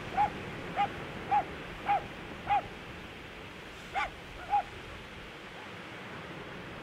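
A dog barking: five short barks about half a second apart, then two more about four seconds in, over a steady background hiss.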